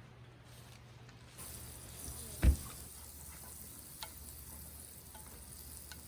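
Food sizzling in a hot pan, the hiss starting about a second and a half in and running on steadily. One loud knock comes shortly after it starts, with a few light clicks later.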